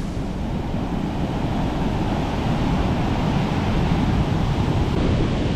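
Large storm-driven ocean surf washing on the beach, with strong wind buffeting the microphone, a steady wash of noise with a heavy low rumble.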